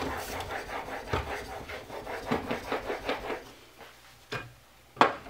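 A plane iron in a Veritas MK.II honing guide being rubbed back and forth on a wet 1000-grit Norton waterstone in quick, even scraping strokes, working the bevel until a burr rolls onto the back of the iron. The strokes stop about three and a half seconds in, followed by a click and a sharp knock near the end.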